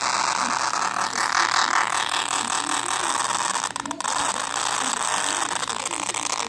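iPhone SE loudspeaker giving out a steady, rapid crackling buzz on its own, with a brief dip a little before four seconds in. It is a speaker fault that the owner thinks needs an Apple repair.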